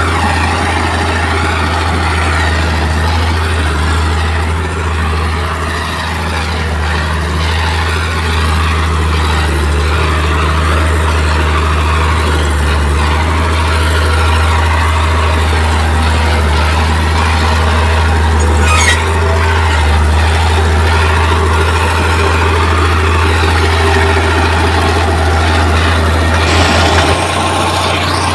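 Heavy diesel engine of earth-moving equipment running steadily with a deep, even drone, with one brief sharp sound about two-thirds of the way through.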